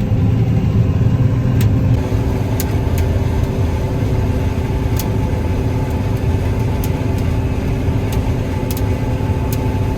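Combine harvester running steadily during soybean harvest: a constant low engine rumble with several steady hums above it.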